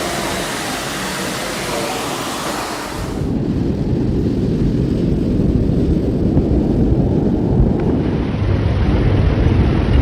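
Storm noise: a steady hiss of wind and rain that cuts abruptly about three seconds in to a loud, deep rumble, like wind buffeting the microphone, which swells near the end.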